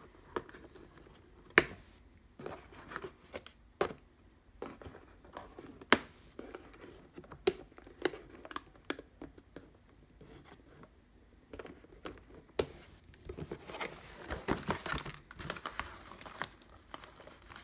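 Scissors snipping through tape and plastic ties on a cardboard box insert: a few sharp snips several seconds apart with light scraping between. Near the end, a longer stretch of rustling and crinkling as the cardboard and plastic packaging is handled.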